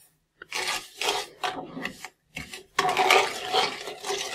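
A plastic slotted spatula stirring granulated sugar into melted butter and milk in a pan, the undissolved sugar grating against the pan's bottom. It comes as a run of short scraping strokes that merge into steadier scraping about three seconds in.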